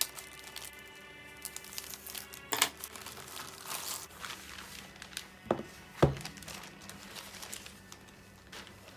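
A mailed parcel being opened by hand: wrapping crinkling and tearing, with scattered small clicks and two knocks about five and a half and six seconds in, the second the loudest.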